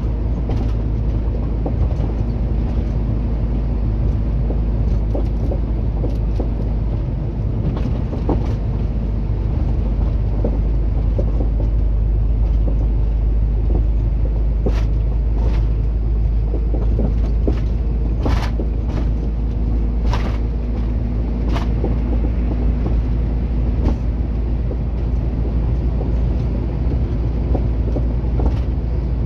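Truck engine and road noise heard from inside the cab while driving at speed: a steady, even low drone. A handful of sharp clicks come through about halfway in.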